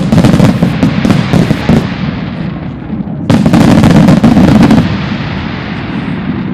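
Aerial fireworks shells bursting in rapid succession: a dense run of bangs and crackle, easing about two seconds in, then another loud salvo around three seconds in that dies away into a lower rumble near the end.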